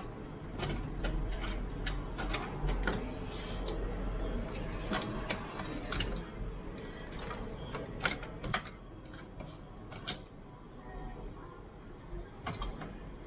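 Irregular sharp clicks and light knocks of painting tools being handled and sorted through, over a low steady hum. The clicks come thickest in the first half and thin out towards the end.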